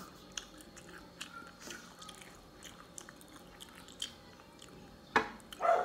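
A person chewing a mouthful of rice and eggplant omelette close to the microphone: faint wet mouth clicks, with one louder click about five seconds in.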